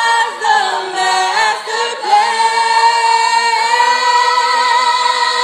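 A woman singing loudly in a high voice. From about two seconds in she holds one long note that wavers with vibrato.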